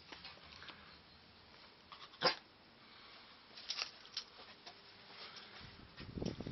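Dachshund puppy giving one short, sharp yap about two seconds in, with faint clicks and rustles around it.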